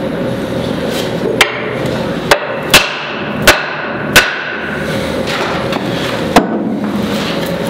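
A wooden board striking the end of an axe handle six times at uneven intervals, sharp wood-on-wood knocks that drive the handle down into the eye of the axe head to seat it.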